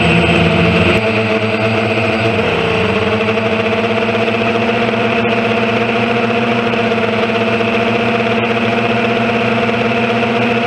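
Multirotor drone's electric motors and propellers running, picked up by the camera mounted on the drone itself. The pitch shifts during the first couple of seconds, then holds steady.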